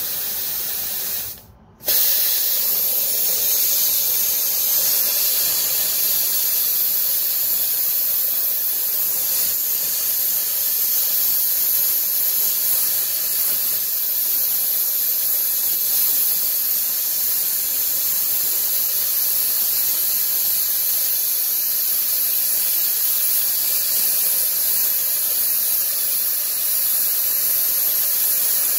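Handheld plasma cutter cutting steel: a loud, steady hiss of the air-driven arc. It breaks off briefly about a second and a half in, then runs on without a break.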